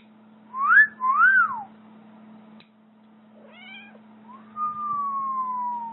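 A cat meowing. Two quick rising-and-falling meows come first and are the loudest. A shorter call follows about three and a half seconds in, then one long meow that falls slowly in pitch.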